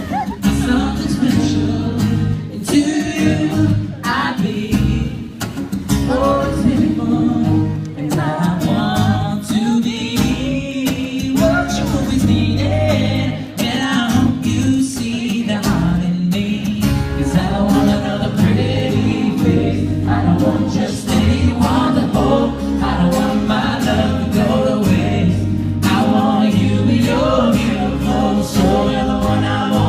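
Live pop music: a singer's voice over a band's bass and drums, amplified through a PA.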